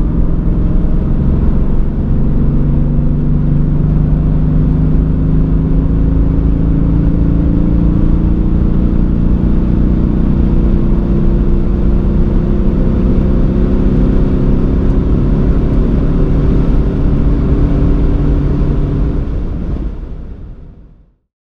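Mercedes-AMG GT's twin-turbo 4.0-litre V8, tuned to 612 hp, pulling hard at full throttle in seventh gear, heard from inside the cabin. The engine note climbs slowly and steadily as the revs rise, then fades out near the end.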